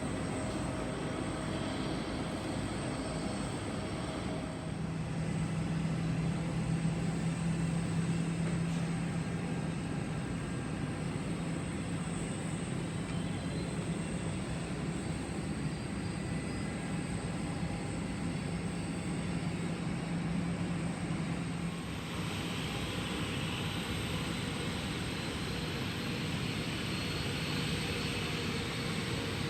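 Airplane engine noise: a steady drone with a low hum that grows louder a few seconds in and fades about two-thirds of the way through, then gives way to a brighter, hissier engine sound.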